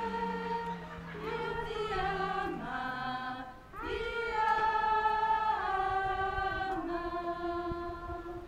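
A group of women's voices singing a slow hymn together in unison, with long held notes that step up and down in pitch. There is a short break for breath about three and a half seconds in, and the phrase ends near the end.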